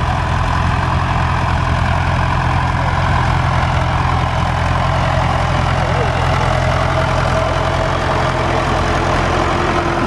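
Fordson Super Major tractor's four-cylinder diesel engine running steadily under load as it pulls a mounted plough.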